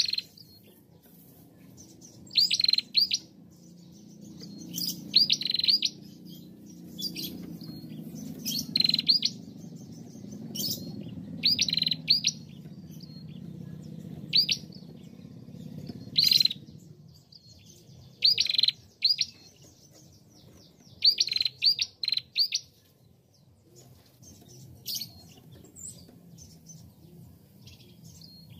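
Female prenjak calling: sharp, high chirps, often in quick runs of two to four notes, repeated every second or two. A faint low rumble underlies the first half.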